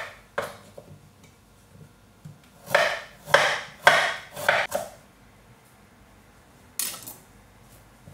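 Knife slicing a red onion on a wooden cutting board: one cut just after the start, a quick run of about five cuts in the middle, and a single one near the end.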